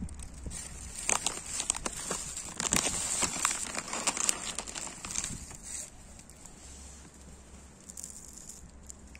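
A plastic bag crinkling and dry cat kibble pattering onto pavement as it is poured out, for about four and a half seconds, then much quieter.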